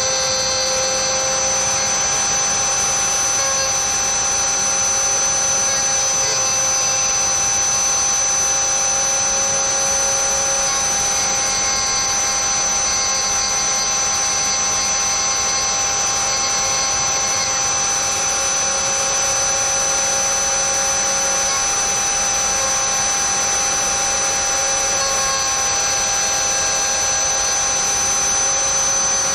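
Dremel rotary tool in a drill-press stand running at high speed with a steady high whine, its end mill cutting a slot in hard PVC sheet.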